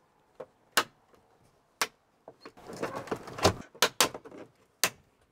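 Plastic trim on a 2014 Chrysler Town & Country overhead console being pried down with a screwdriver: about half a dozen sharp clicks and snaps as its pop-tab clips let go. There is plastic scraping and rattling in the middle, where the panel comes loose.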